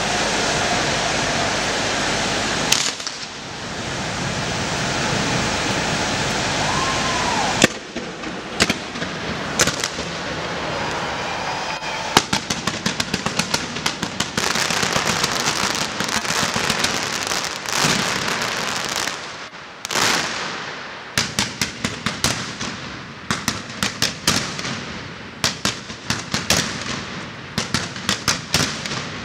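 A steady rushing roar for the first several seconds, then a fireworks display: dense, irregular sharp bangs and crackling of aerial shells and firecrackers from about eight seconds in.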